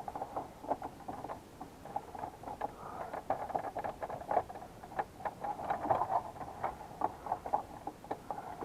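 Plastic dash trim and the 4x4 switch being handled and fitted by hand: irregular small clicks, taps and scraping of plastic on plastic.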